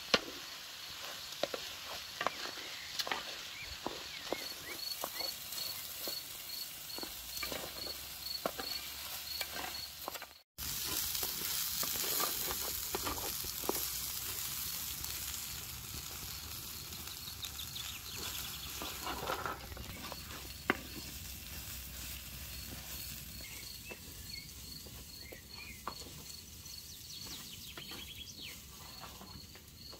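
Food sizzling as it fries in a pan, with the clicks and scrapes of stirring. About ten seconds in there is a brief cut, after which the sizzle is louder and then slowly dies down.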